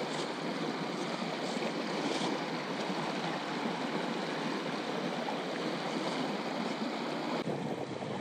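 Small creek rushing steadily over rocks in shallow riffles, a continuous even rush of water.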